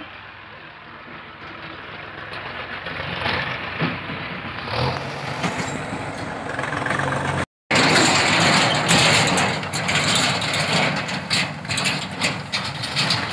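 Diesel engine of a JCB 3DX backhoe loader running while it digs in earth. About halfway the sound drops out for a moment and comes back louder, with tractor engine noise and many short rattling knocks.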